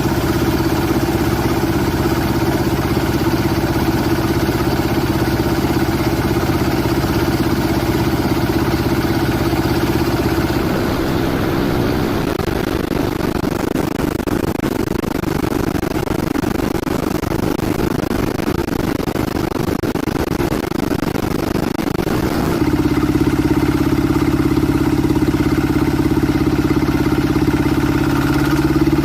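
Combine harvester's engine running steadily. About ten seconds in the sound turns rougher and noisier without a clear engine note, and a steady engine drone returns, a little louder, near the end.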